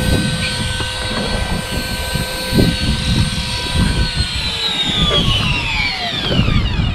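An engine's steady high whine over a low rumble. The whine falls steadily in pitch through the last three seconds, as the engine winds down.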